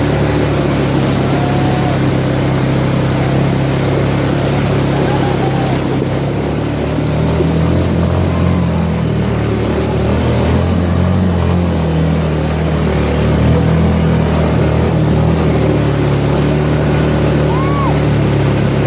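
Quad bike (ATV) engines running steadily as the bikes drive through a shallow stream, the pitch shifting for a few seconds in the middle, over the rush of splashing water.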